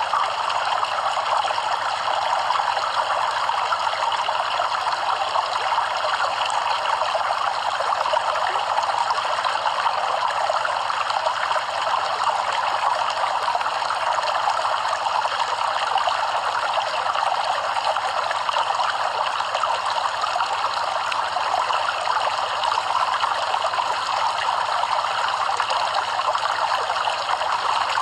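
Stream water flowing and trickling steadily over stones, an even rushing babble.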